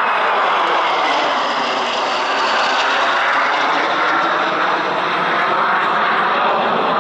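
A formation of Aero L-39 Albatros jet trainers passing overhead, their turbofan engines making a loud, steady jet noise.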